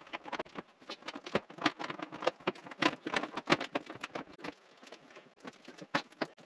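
Plastic front grille of a Toyota Tundra being handled and pushed into place, giving a fast, irregular run of clicks and knocks. They are thickest in the first four seconds and grow sparser after that.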